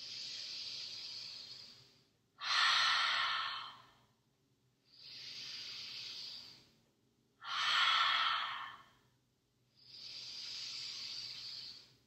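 A woman taking deep yoga clearing breaths: a long inhale of about two seconds, then a louder exhale that starts suddenly, repeating about every five seconds, giving three inhales and two exhales.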